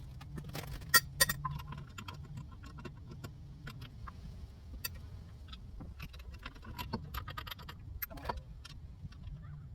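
Light metallic clicking and jingling: many scattered small clicks, with two louder ones about a second in, over a low steady hum.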